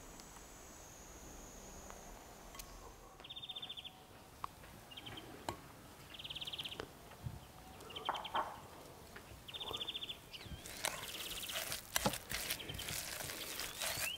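Metal spoon stirring and scraping wet grated beetroot in a glass bowl: a busy run of clicks and scrapes over the last few seconds. Before and under it, short high trilled chirps repeat about every second and a half.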